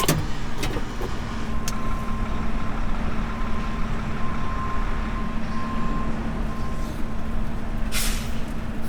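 Heavy truck's diesel engine running with a steady hum, and a short air-brake hiss about eight seconds in.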